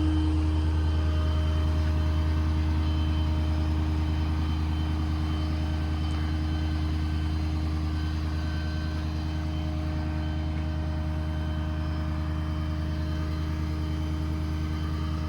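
Ford 6.7 Power Stroke V8 diesel running steadily with the PTO engaged, driving the hydraulic pump for the crane. It makes a steady low hum with fainter, higher steady tones above it.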